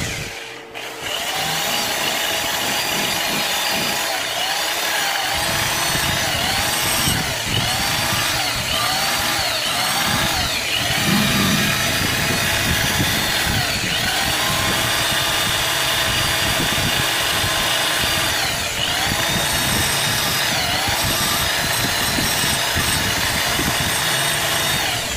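Power drill spinning a wire wheel brush against the old drill's metal housing, stripping paint. The motor's whine sags and rises again every second or two as the brush is pressed on, after a brief let-up about half a second in.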